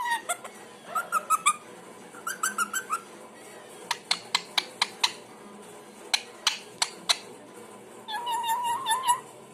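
Pet parrot vocalising: two quick runs of short squeaky chirps, then a series of sharp clicks spaced a fraction of a second apart, then a wavering, warbling note near the end.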